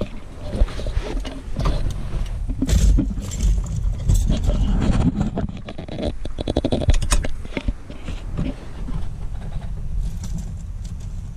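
Keys jangling, with knocks and rustling as someone gets into a car seat and handles the cabin. A steady low rumble runs underneath through the second half.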